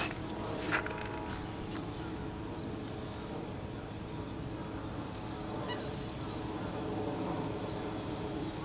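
Steady outdoor background hum with a few faint short bird calls, likely from waterfowl on the moat, and a couple of light knocks near the start.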